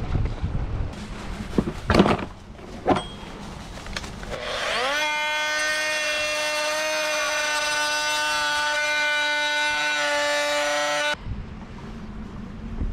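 A handheld electric grinder spins up with a quick rising whine about five seconds in and runs at a steady high pitch for about six seconds, grinding down the fibreglass mount to fit the hull, then stops abruptly. Before it, two knocks over wind noise on the microphone.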